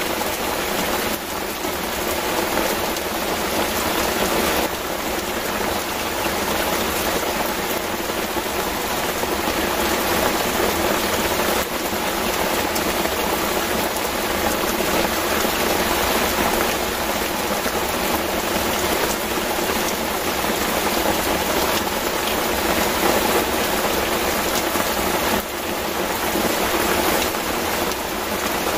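Heavy rain pouring down steadily onto a river, an even unbroken hiss of a downpour.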